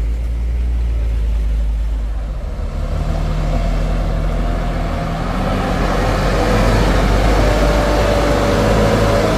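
Heavy diesel truck engine running close by, a deep, steady sound. A thin whine joins from about six seconds in.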